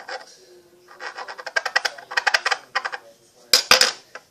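Table knife cutting and squishing through a lump of sticky homemade flour-and-body-wash slime on a tabletop, giving runs of rapid wet crackling. Two or three loud knocks against the table near the end.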